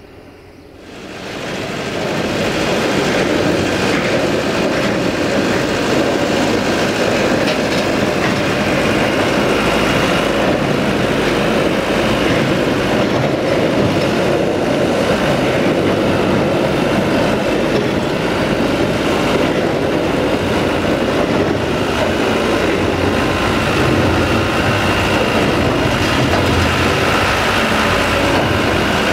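Diesel machinery of a Robel rail-unloading train, starting up about a second in and then running steadily and loudly with a continuous drone.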